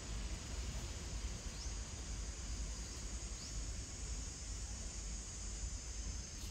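Outdoor ambience: a steady high-pitched drone of insects over a low, uneven rumble, with two faint short rising chirps.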